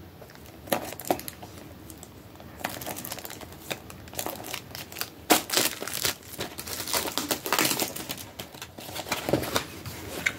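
Foil wrapper of a Pokémon TCG booster pack crinkling as it is handled and opened, starting about two and a half seconds in and going on in irregular crackles.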